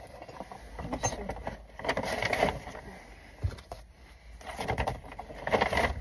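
Items being handled: irregular rustling and light knocks and clicks, in several bursts, over a steady low rumble.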